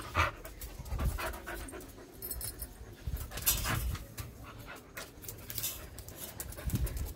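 A dog panting during rough play, with scattered rustling and light knocks from the handling close to the microphone.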